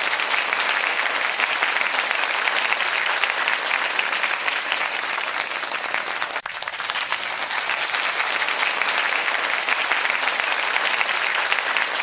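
A crowd applauding: dense, steady clapping with a brief break about six and a half seconds in.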